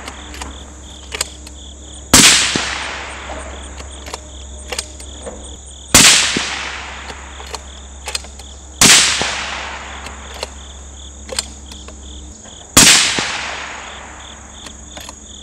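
Suppressed Aero Precision Solus bolt-action precision rifle with a Lahar-30 suppressor, fired four times, about three to four seconds apart. Each shot is followed by a long echo that dies away, with fainter clicks between shots.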